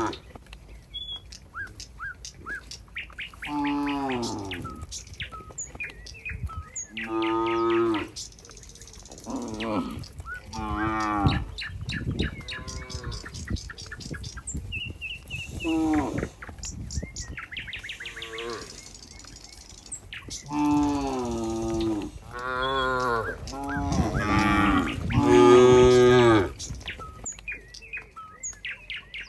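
Cows mooing again and again, about ten calls of roughly a second each, the loudest run near the end. Small birds chirp faintly between the calls.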